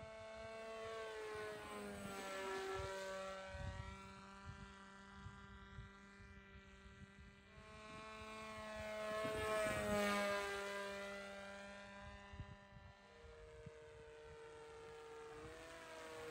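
Electric motor and propeller of a homemade pusher-prop FPV plane whining as it flies past twice, louder and dropping in pitch as it goes by, about two seconds in and again about ten seconds in. Near the end the pitch steps up as the throttle is raised.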